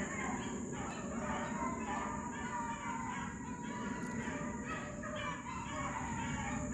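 A pack of rabbit beagles baying in full cry, many overlapping voices calling again and again as they run a jumped rabbit's track.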